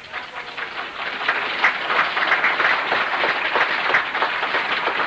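Audience applauding, the clapping swelling over the first second or so and then holding steady.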